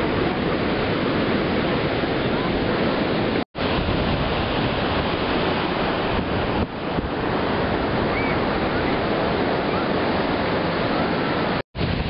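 Steady, dense noise of Pacific Ocean surf mixed with wind on the microphone. The sound cuts out completely for an instant twice, about three and a half seconds in and near the end.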